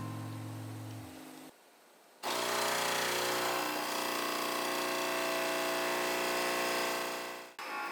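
A small electric motor runs steadily for about five seconds, an even hum with a whine over it, then cuts off abruptly near the end. Before it, music fades out and there is a brief pause.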